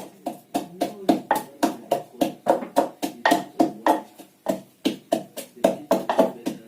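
Ginger and garlic being pounded into a paste with a pestle in a mortar: steady, even strikes about three a second, each with a short ringing note from the mortar.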